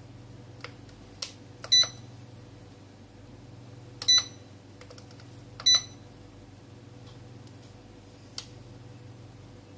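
Three short electronic beeps, just under 2 s, about 4 s and just under 6 s in, with a few light clicks between them, over a steady low electrical hum.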